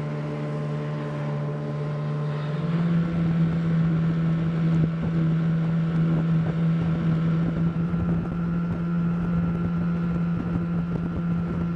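Outboard motor driving a rubber raiding craft at speed, a steady engine note that steps up a little in pitch about two and a half seconds in as the throttle opens. Wind on the microphone and rushing water grow louder from then on.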